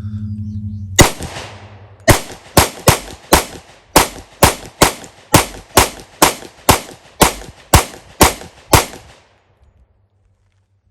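Rock Island 10mm double-stack all-metal pistol fired: one shot, a short pause, then a fast string of about sixteen shots at two to three a second, ending about nine seconds in. The pistol is being function-tested on its factory recoil spring, and it fires every round of the string.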